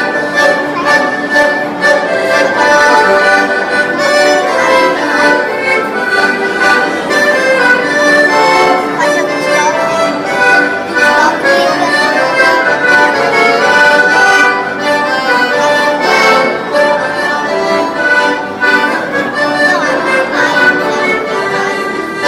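Two piano accordions playing a duet: a melody of many quick, changing notes over accompaniment.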